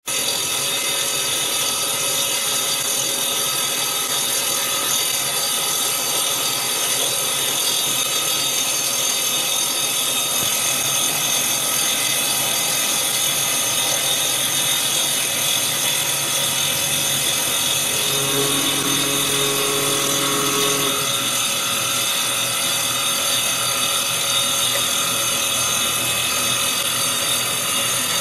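CNC wood lathe's motor-driven circular saw blade cutting a spinning wooden baseball bat blank on a 3 mm-deep pass. It makes a steady, loud, high cutting whine mixed with the spray of wood chips, with a momentary dropout at the very start.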